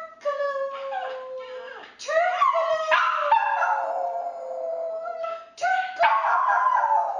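A puppy howling: a series of long howls, each rising quickly at the start and then sliding slowly down in pitch.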